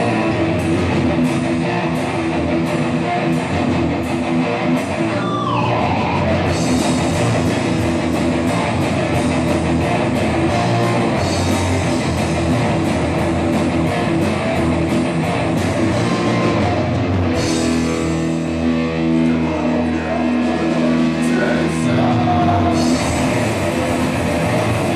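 Punk rock band playing live: distorted electric guitar, bass guitar and drum kit. It starts sparser, with evenly spaced sharp strokes, and fills out into the full band about six seconds in.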